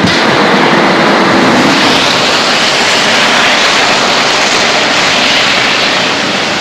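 Hurricane-force wind blowing as a loud, steady rush of noise.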